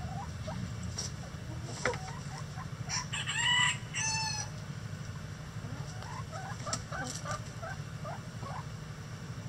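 A rooster crows once, about three seconds in, a crow lasting about a second and a half. Hens cluck softly before and after, over a low steady hum.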